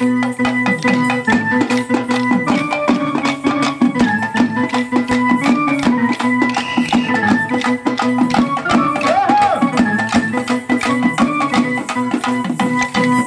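Traditional Indian folk music played live: rapid drumming with sharp, frequent strikes over a steady held drone and a wavering melody line.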